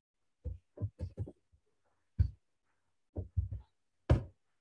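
Computer keyboard keystrokes and mouse clicks, heard as about a dozen short, muffled thumps at irregular intervals: a query being copied, pasted into a command line and run.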